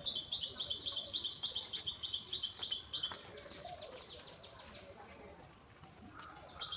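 A bird calling: a fast, even run of short high notes, about six a second, for some three seconds. The same call starts again near the end.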